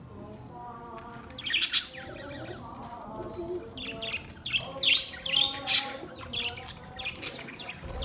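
A flock of budgerigars chattering: a continuous low warble under loud, sharp chirps, with a burst about a second and a half in and a run of several more from about four seconds in.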